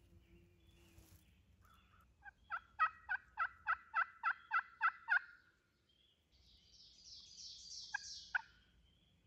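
Turkey calling: a run of about ten evenly spaced, sharp notes lasting about three seconds. Near the end come a short rasping sound and two brief sharp notes.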